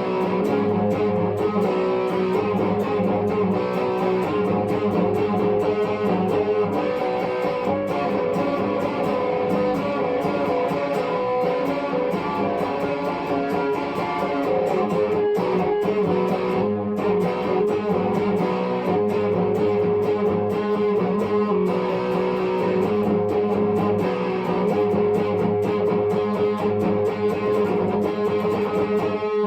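Epiphone 1959 Les Paul Standard electric guitar played continuously, with fast picked and strummed notes and chords at a steady level.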